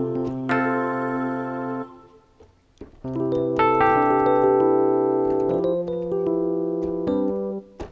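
Yamaha MX49 keyboard playing an FM electric piano patch in the style of the Yamaha DX7, with sustained chords. One held chord ends a little under two seconds in. After about a second's pause, a new chord progression plays, with its upper notes stepping and its bass moving.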